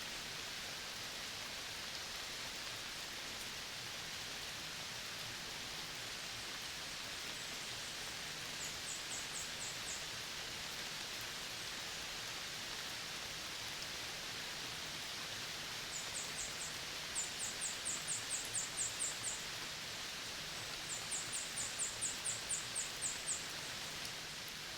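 Outdoor ambience of a tropical dry forest: a steady dense hiss, with three runs of very high, quick ticking calls from a small animal, about five pulses a second, the later two runs louder.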